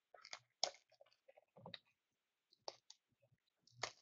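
Faint, scattered clicks and light crinkles of sealed hockey card packs and a cardboard inner box being handled and opened, about half a dozen separate sounds.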